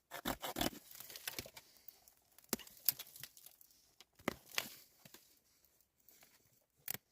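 Irregular rustling and crackling with sharp clicks: something being handled, crinkled or torn up close, densest in the first second, with a few sharper cracks later on.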